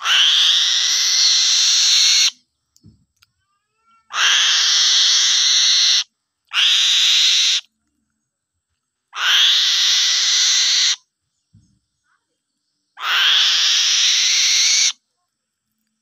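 A young eagle gives five long, hoarse, hissing screeches of one to two seconds each, with pauses between them. These are the food-begging calls of an eaglet while a fish is held beside it.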